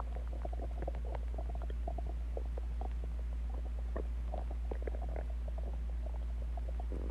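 A person's stomach growling and gurgling: many short, irregular gurgles and pops, over a steady low hum.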